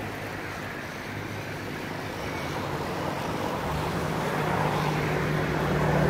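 A motor's low steady drone, growing louder from about halfway through as it draws nearer.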